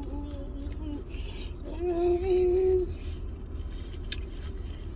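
A woman humming with her mouth closed: a low held note, then a slightly higher one about two seconds in, over a low steady rumble.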